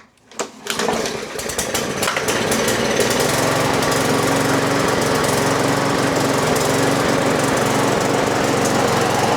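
Murray 22-inch push mower's engine starting at once on the pull after its carburetor was cleaned: a few clicks, then it catches within the first second and settles into a steady run by about three seconds in.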